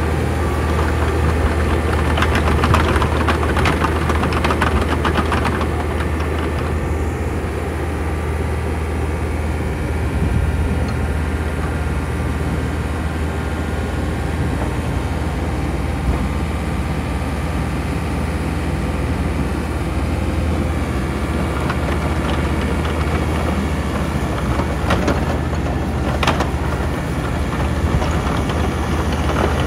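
Volvo EC60C midi excavator's diesel engine idling steadily, a low, even drone.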